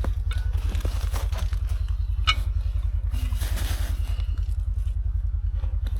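A side-by-side UTV engine idling with a steady, even low throb, with a few short clicks and scrapes over it, the sharpest about two seconds in.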